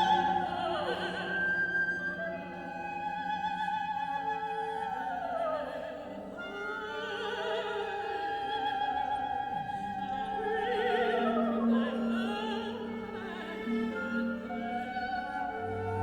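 Background music: operatic singing with vibrato over an orchestral accompaniment.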